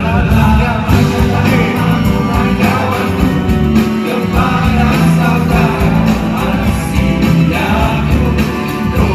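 A song with several voices singing together over a full band with a strong bass.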